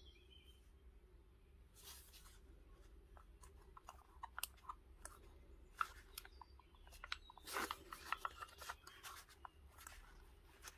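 Quiet, scattered clicks, taps and scraping rustles of an old Stanley utility knife being handled by hand. The sounds are busiest about two-thirds of the way through.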